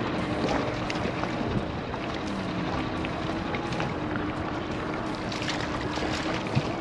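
Small outboard motor running steadily at trolling speed, with wind on the microphone. Water splashes near the end as a hooked lake trout thrashes at the surface beside the boat.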